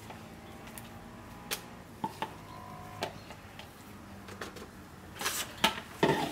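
Handling sounds of soap-making tools: a few light clicks and taps, then louder rustling and knocking near the end.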